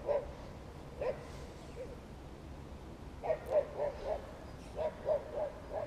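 A dog barking in short yaps, singly and then in quick runs of three or four.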